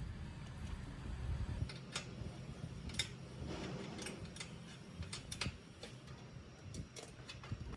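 Irregular sharp clicks and light taps, like hand tools and small metal parts being handled during assembly work. A low hum underneath stops about 1.7 seconds in.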